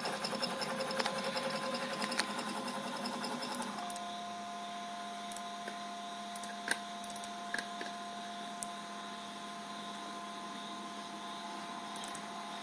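DC servo motors of a home-built CNC router, run by GeckoDrive G320X drives, moving an axis with a quiet, fast, even buzz that stops about four seconds in. After that the motors hold position with a steady hum and a thin whine, and a few small clicks.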